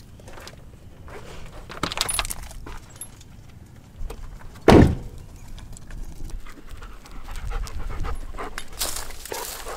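Dog panting in short breathy bursts, close by. About halfway through comes one loud, sudden bump.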